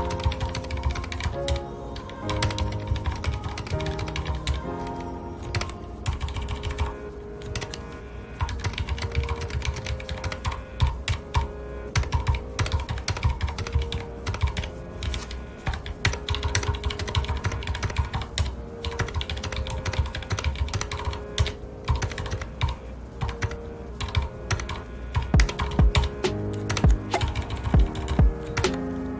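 Continuous, irregular typing on a mechanical computer keyboard with linear red switches, key after key clacking at an uneven pace. Soft background music with sustained notes plays under the typing.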